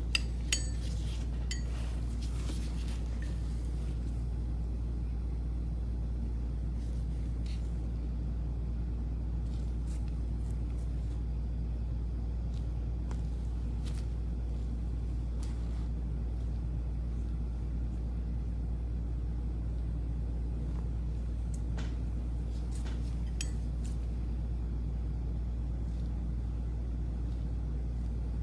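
A steady low hum, with a few faint light clicks and taps scattered through it.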